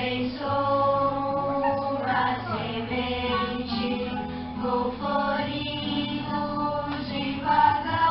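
Several voices singing a song together over instrumental accompaniment.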